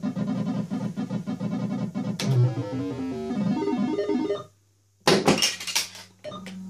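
A fruit machine's electronic sound-effect tune: a fast, pulsing synthesizer melody, then a run of chirpy notes that stops about four and a half seconds in. Near the end a burst of clattering clicks comes, followed by a steady low hum.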